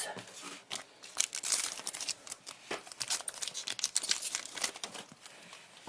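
2011 Topps Chrome football cards and their packaging being handled, with a dense, irregular crinkling and rustling.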